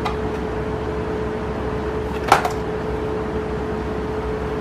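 Steady background hum at one constant pitch over a noise floor, with one short click about two seconds in.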